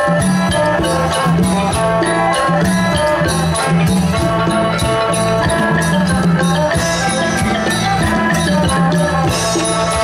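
Isan pong lang folk ensemble playing a lively instrumental piece: layered melody lines over a steady, driving percussion beat.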